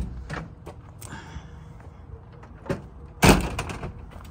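A few light knocks and clatter, then a loud door slam about three seconds in.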